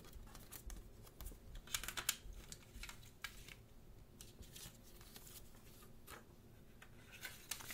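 A paper lyric sheet and a plastic CD jewel case being handled: light paper rustles and a scatter of soft plastic clicks and taps, thickest about two seconds in.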